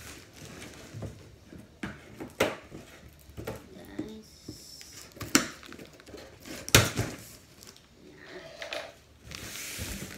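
A cardboard box being handled and cut open with scissors: scattered knocks, clicks and rustles of the cardboard, with a longer scraping rustle near the end as a flap is pulled.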